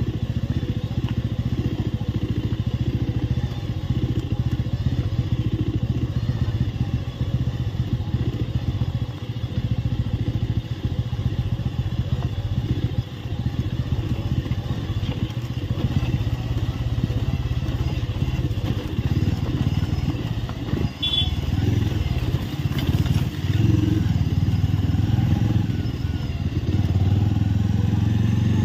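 Bajaj Avenger 220 Street's single-cylinder engine running steadily while the motorcycle rides over a rough, rocky track. It gets a little louder about two-thirds of the way in.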